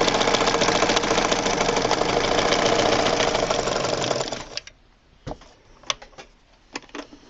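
Freshly serviced vintage Dressmaker zigzag sewing machine running at speed, stitching rapidly, then stopping a little over four seconds in; a few faint separate clicks follow.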